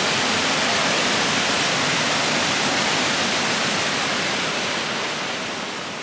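A small waterfall rushing steadily down rocks into a pool, close to the microphone, growing a little fainter near the end.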